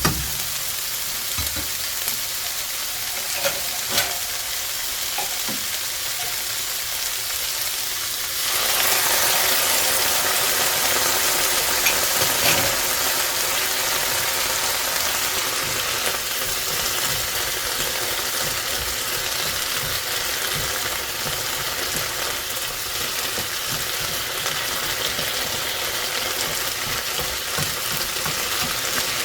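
Food sizzling in a frying pan while it is stirred, with occasional light clicks of the utensil against the pan. About eight seconds in, the sizzle suddenly gets louder and brighter.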